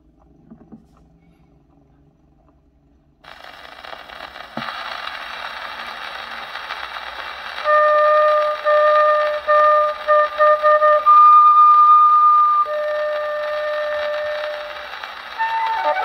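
Shellac 78 rpm record playing on an acoustic Victrola VV 1-90 phonograph: surface hiss starts about three seconds in with a click as the needle settles, then the record's introduction begins with long held high flute notes, breaking into a quick run of notes near the end.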